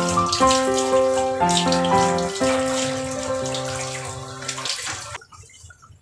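Water pouring from a garden hose onto a wet puppy's coat as it is rinsed, over background music of sustained chords. The music ends shortly before the water cuts off, about five seconds in.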